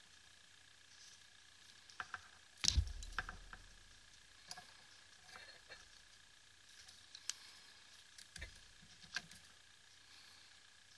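Scattered small clicks and taps of tweezers and a soldering iron being handled against a flashlight's switch LED board, with a soft thump about three seconds in and another about eight seconds in, over a faint steady high tone.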